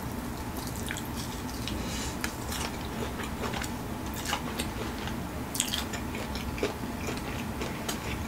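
Close-miked biting and chewing of a Flamin' Hot Cheetos-coated chicken wing, with scattered sharp mouth clicks and crunches.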